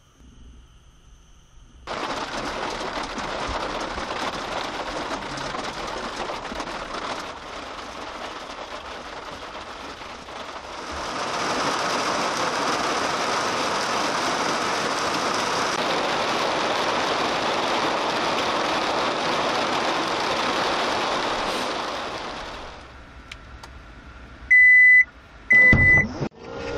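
Steady rain hiss that starts abruptly a couple of seconds in, grows heavier about halfway through, then fades out. Near the end come two short, loud, high-pitched electronic beeps.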